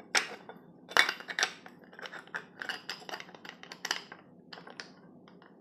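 Abrasive disc being set by hand onto a Black & Decker angle grinder's spindle: a string of light clicks, scrapes and clinks of the disc against the tool's metal parts, the sharpest about a second in and near four seconds.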